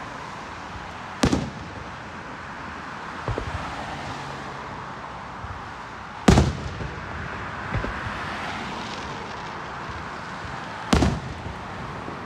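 Aerial fireworks shells bursting: three loud booms, about a second in, in the middle and near the end, each trailing off briefly, with a couple of fainter thumps between.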